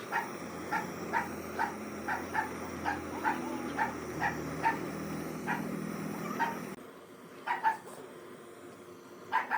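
Dog barking repeatedly in short, pitched barks about twice a second over a steady low hum. About seven seconds in, the hum stops abruptly and a few more barks follow, two close together.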